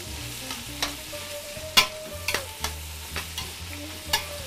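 Pork cubes sizzling in oil and butter, seared over high heat in a stainless steel pot, while metal tongs stir them and clink against the pot several times.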